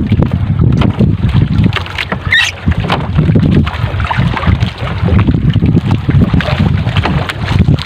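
Wind buffeting the microphone over waves lapping against a small outrigger boat, with the light rustle and knock of a nylon triple net being hauled in over the side. A brief high squeak about two and a half seconds in.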